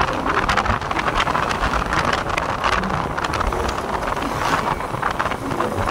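Wind buffeting the microphone while riding along a road, mixed with the running of motorcycle engines and traffic.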